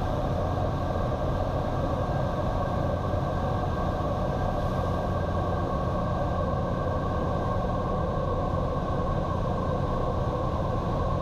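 Cirrus SR22's six-cylinder piston engine and propeller, a steady drone heard in the cockpit at reduced approach power, even in pitch and loudness throughout.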